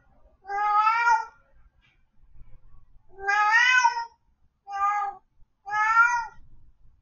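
House cat meowing four times: long drawn-out meows that rise and fall in pitch, the second and last the longest, the calls of a cat left alone at home.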